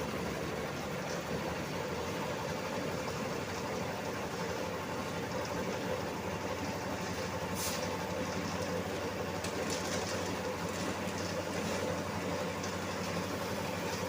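Engine of road-construction machinery running steadily at an even speed, with one brief sharp click about seven and a half seconds in.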